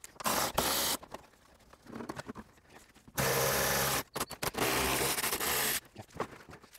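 Plastic under-engine splash shield scraping against the car's underbody as it is pulled down and pushed aside. Several scrapes of up to about a second each, with a few clicks between them.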